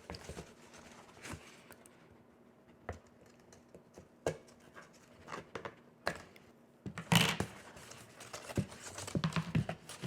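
Cardstock pieces and small button brads being handled on a work surface: scattered clicks, scratches and paper rustles, loudest about seven seconds in.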